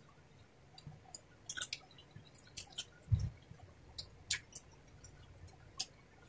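Close-miked eating sounds: scattered wet smacks and sharp clicks of chewing and of fingers working rice on a plate. There is one dull low thump about three seconds in.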